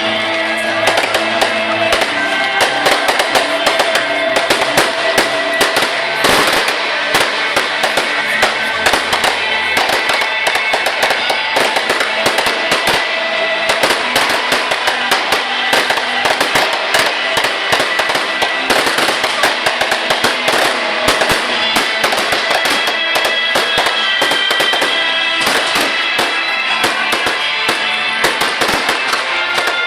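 Fireworks going off in a dense, continuous crackle of many small sharp reports, with music playing loudly underneath.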